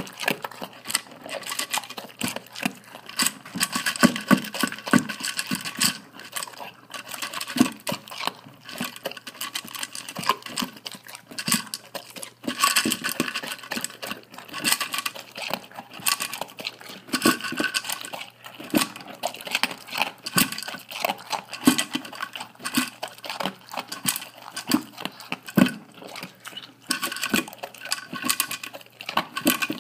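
Dog eating dry kibble very fast from a stainless steel bowl: rapid, irregular clicking and clattering of kibble against the ringing metal bowl, mixed with crunching.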